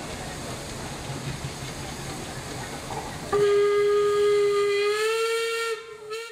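Steady hiss of working steam engines, then about halfway through a traction engine's steam whistle blows one long note, stepping up slightly in pitch before it stops, followed by a short second toot at the end.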